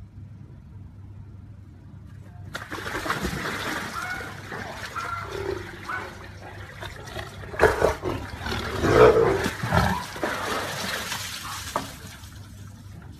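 Water splashing and pouring as a tiger heaves itself up out of a concrete pool. It starts suddenly about two and a half seconds in and is loudest around eight to ten seconds in.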